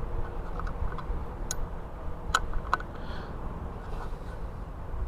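Wrench and metal fittings clicking as a bolt on a motorcycle brake hose is tightened: a handful of sharp, unevenly spaced clicks, mostly in the first three seconds, over a low steady rumble.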